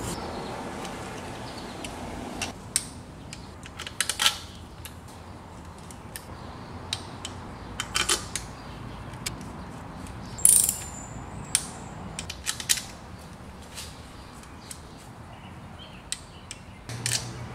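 Ratchet wrench clicking in short runs as intake manifold bolts are tightened, with scattered clicks and taps of metal tools; one sharper, louder click about halfway through.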